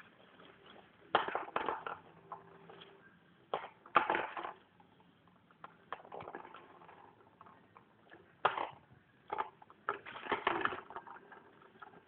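Fabric cat play tunnel rustling and crinkling in irregular bursts as kittens scramble and pounce in and on it, with the loudest bursts about a second in, around four seconds, and twice in the last four seconds.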